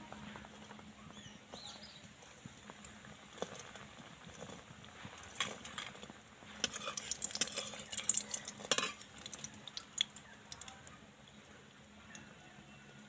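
Biscuit dough rounds frying in oil in a metal kadai with a faint, steady sizzle and crackle. Between about five and nine seconds in, a metal spatula clinks and scrapes against the pan as the biscuits are moved.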